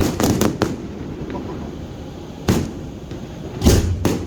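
Fireworks bursting: a quick cluster of sharp bangs at the start, a single bang about two and a half seconds in, and the loudest bang near the end.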